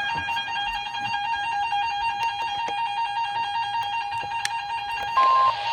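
Emergency Alert System two-tone attention signal sounding steadily, its two close pitches alternating rapidly, with a short, louder, higher beep near the end. It announces a severe thunderstorm warning.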